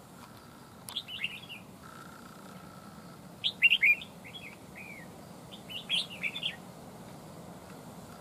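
Red-whiskered bulbuls singing: a handful of short, quick whistled phrases, the loudest about three and a half seconds in.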